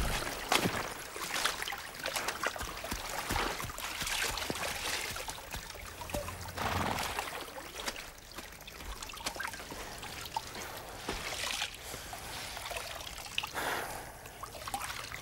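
Water splashing and trickling in a stone wash trough as laundry is washed and wrung out by hand, with many small irregular splashes.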